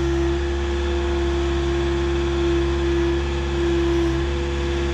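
Skid-steer loader engine running steadily: a low drone with a strong, steady higher hum over it.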